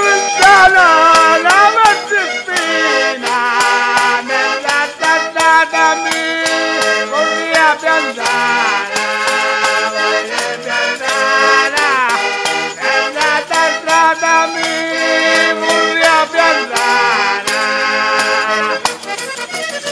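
Organetto (diatonic button accordion) playing a traditional southern Italian folk tune, with a melody over repeated bass notes. A man's voice sings in gliding phrases, most clearly in the first couple of seconds.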